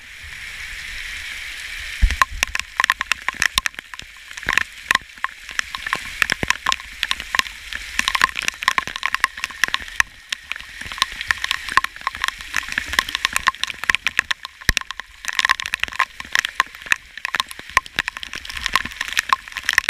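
Heavy tropical rain: a steady hiss of rainfall and runoff splashing into buckets, with frequent sharp taps of drops striking close to the microphone starting about two seconds in.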